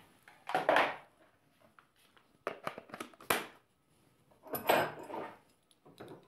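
Handling noise of a cordless drill battery pack: a few short plastic scrapes and knocks as the battery is taken off its charger and slid onto the drill. The longest scrape comes about three quarters of the way in.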